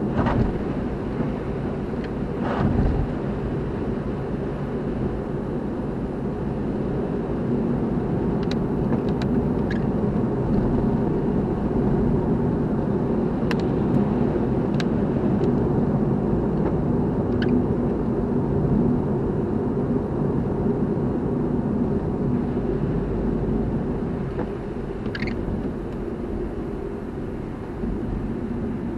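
Car driving at a steady pace: constant engine and road noise. A few faint, short clicks are scattered through it.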